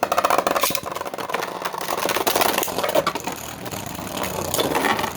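Beyblade spinning tops whirring and clashing in a plastic stadium: a continuous rattling whir dense with rapid clicks from the tops striking each other and the stadium walls.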